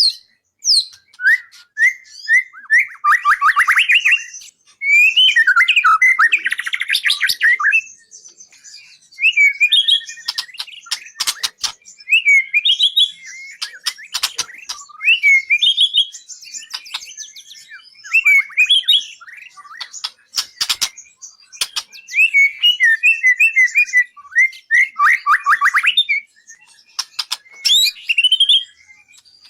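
A murai (Copsychus songbird) singing a loud song: varied whistled phrases and fast rattling trills mixed with sharp clicking notes, in bursts every few seconds with short pauses between.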